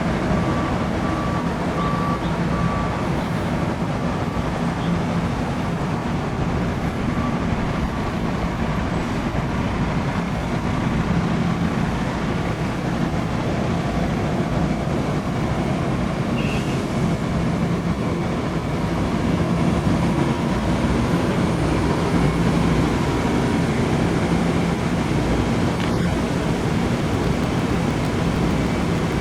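Steady rumble of vehicle noise with a faint low hum.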